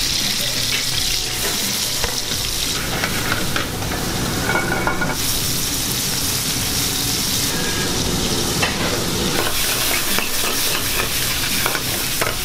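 Green peas and tomato pieces sizzling in hot oil in an aluminium frying pan on a gas burner, with a metal utensil stirring the pan and clicking against it.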